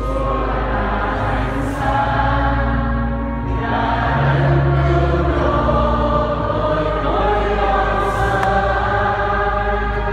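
Choir singing a hymn in long held notes over a steady low sustained accompaniment.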